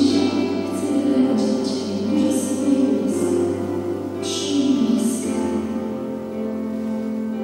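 Worship song: voices singing with instrumental accompaniment, settling into a long held note near the end.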